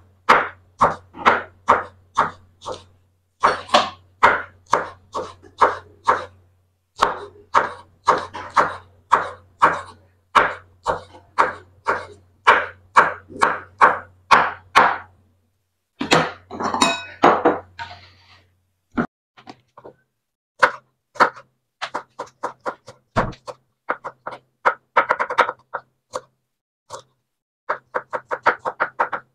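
Knife chopping vegetables on a cutting board: runs of sharp strokes about twice a second, with short pauses between runs, and lighter, sparser strokes in the second half.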